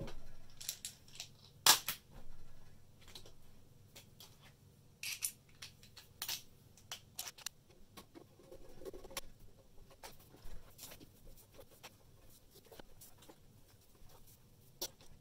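Scattered clicks, scrapes and knocks of a screwdriver working the screws of the tester's sheet-metal back panel, with the metal case being handled; the sharpest knock comes about two seconds in.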